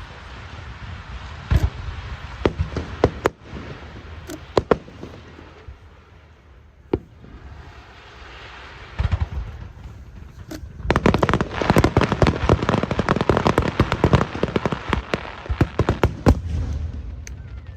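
Aerial fireworks going off: scattered sharp bangs, a hissing lull, then a dense, rapid crackling barrage starting a little past halfway.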